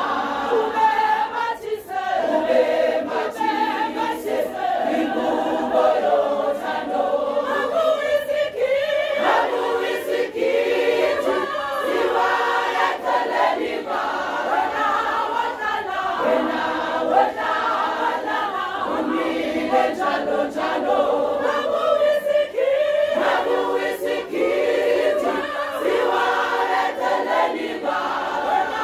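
A large women's church choir singing together without instruments, the voices carrying on continuously.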